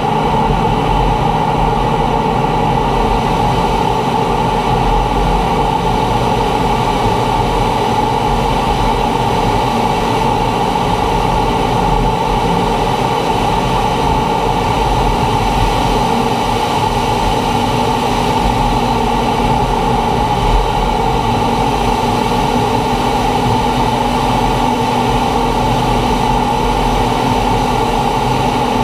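Steady jet noise inside the cockpit of a T-45 Goshawk in flight: its Adour turbofan and rushing air, with a constant high tone running through it.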